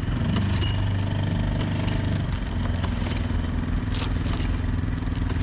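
Small two-horsepower outboard motor idling, a steady low drone that shifts slightly in pitch about two seconds in.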